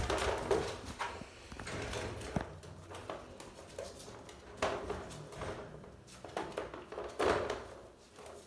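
Four-week-old puppies moving about a wire crate and pen: irregular scuffs, rustles and light knocks from their paws on the plastic crate tray and paper potty pad, with a few louder bursts.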